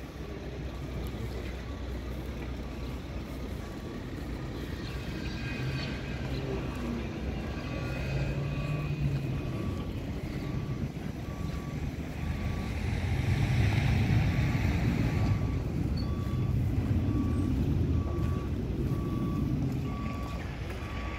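A construction vehicle's reversing alarm beeping steadily, about once a second, over the rumble of diesel machinery working on a building site. The rumble grows louder about halfway through.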